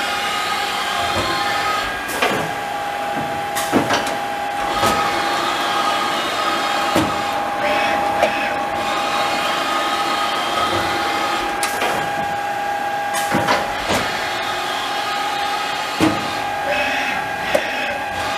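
Haas SL-30 CNC lathe running under power, its gearbox-driven spindle spinning the chuck with a steady whine. Sharp clicks and knocks come every few seconds, irregularly, about eight times.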